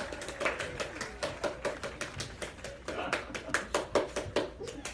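Rapid, irregular tapping or clicking, about six clicks a second.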